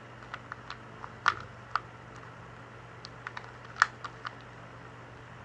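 Plastic 2x2 Rubik's cube being turned by hand: a dozen or so light, irregular clicks as its layers snap round, a couple of them sharper than the rest.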